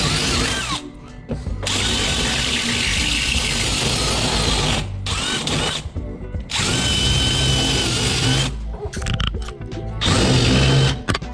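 Power drill boring holes through a door with a step drill bit, in several runs with short pauses between them, about 1 s, 5 s and 6 s in and from about 8.5 to 10 s.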